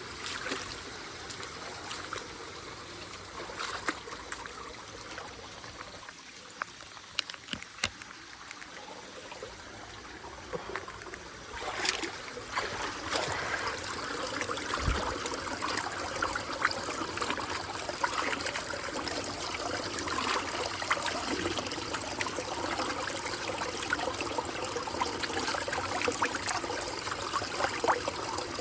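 Water trickling and flowing steadily, growing louder about twelve seconds in.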